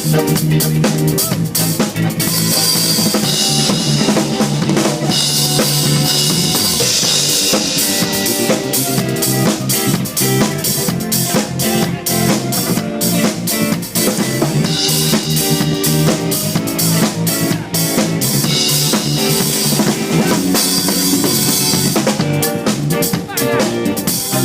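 Drum kit played in a steady groove, kick and snare hits under pitched accompaniment with bass, as in drumming along to a song.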